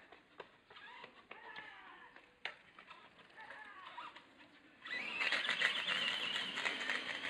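Electric-converted Traxxas Revo RC monster truck driving hard on rough asphalt: a loud, gritty rush of tyre and motor noise that starts suddenly about five seconds in. Before that there are only faint chirps and clicks.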